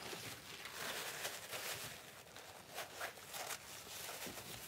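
Soft rustling and scuffing from something being handled, a run of quick irregular scrapes and rustles.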